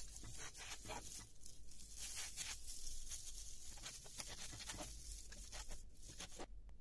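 Kitchen knife slicing cooked chicken into strips on a plastic cutting board, an irregular run of short cuts and knocks of the blade on the board, about two a second, stopping shortly before the end.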